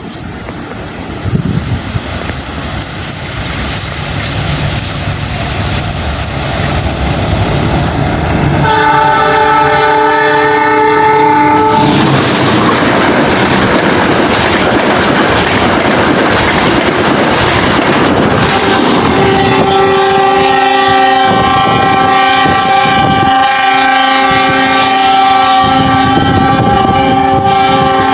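Indonesian train rumbling closer, its locomotive horn sounding for about three seconds some nine seconds in. Loud wheel-and-rail rumble follows as it passes, then a second, longer horn blast from about twenty seconds that lasts almost to the end.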